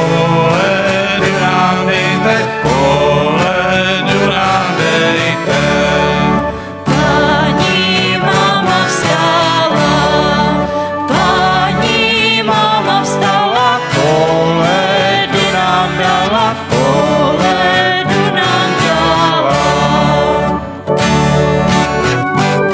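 Live small band playing a song: acoustic guitar, keyboard and bass guitar, with a woman singing the melody.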